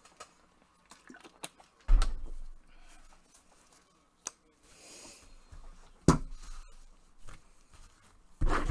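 Handling noise from a stack of Panini Prizm football trading cards in gloved hands: three sharp knocks, about two seconds in, about six seconds in and near the end, the first the loudest, and a brief soft sliding hiss in the middle as the cards are flipped.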